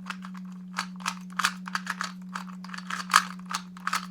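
A 2x2 Rubik's cube being turned fast during a speed-solve: plastic layers clacking in quick, irregular clicks. A steady low hum runs underneath.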